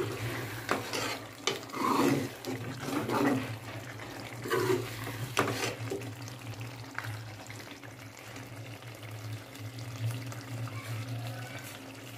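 A metal spoon stirring a thick, wet keema and potato curry in a metal pan, with sloshing, scraping and a few sharp clinks of the spoon against the pan. A steady low hum runs underneath.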